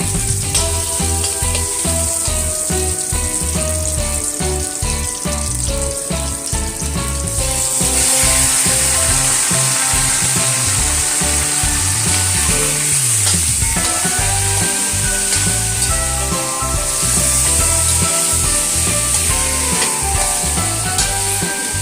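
Food sizzling as it fries in hot oil in a pan, over background music with a steady beat. The sizzle grows louder about a third of the way in, eases, and swells again later.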